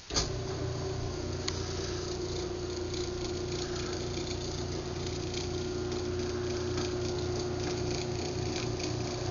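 Craftsman garage door opener started from its keypad: the relay clicks and the motor runs through an opening cycle with a steady hum and light ticking rattle, then stops at the end.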